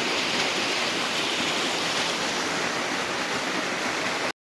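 Small waterfall and river, a steady even rush of falling and flowing water. The sound cuts out completely for about half a second near the end.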